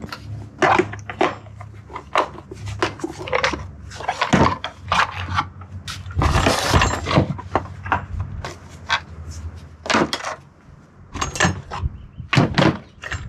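A run of irregular knocks and clanks, some ringing briefly, over a faint low hum, with a harsher rush of noise lasting about a second, about six seconds in.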